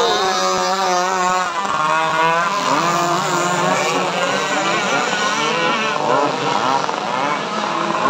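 Several RC racing powerboats with modified two-stroke chainsaw engines screaming at full throttle together. It is a dense, steady engine whine whose several pitches waver up and down as the boats swing past.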